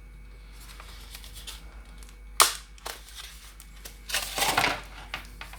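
A product box and its packaging being opened by hand: a sharp snap midway with a smaller click after it, then a crackly rustle of packaging for about a second near the end.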